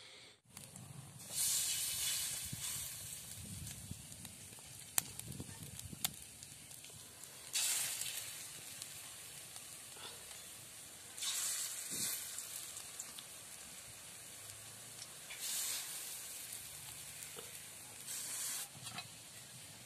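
Banana-stem fritter batter sizzling as it deep-fries in hot oil in a wok. A louder burst of sizzling comes every few seconds as another handful of batter goes into the oil, with a softer steady frying hiss between, and two sharp clicks a few seconds in.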